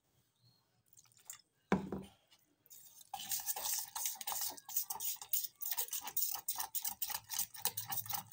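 A fork beating thick, wet besan batter in a stainless steel bowl: quick repeated strokes, the fork clicking against the bowl, starting about three seconds in after a single dull knock.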